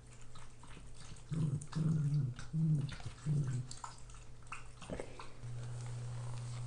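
A dog growling in four short, low bursts in quick succession, with light clicks around it. A steady low hum starts near the end.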